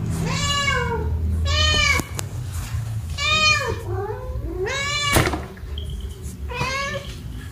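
Long-haired domestic cats meowing angrily at each other during a face-off: five drawn-out meows, each rising then falling in pitch. A sharp click about five seconds in.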